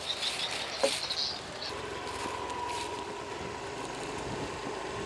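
Motor scooter's small engine running as it rides along, settling into a steady hum about two seconds in. A single short click comes near the start.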